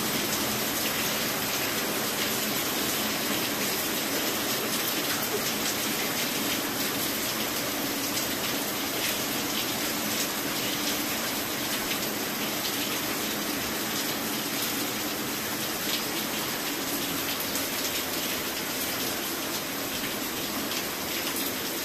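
Heavy rain pouring down steadily onto flooded ground.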